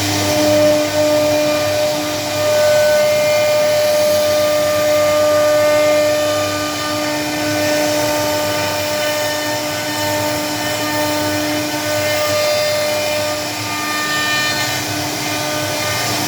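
CNC router running and carving, its spindle giving a steady whine over the noise of the cut.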